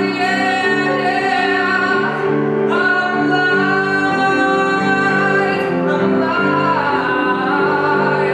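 A man singing a musical-theatre song, holding long notes, over piano chords repeated about twice a second.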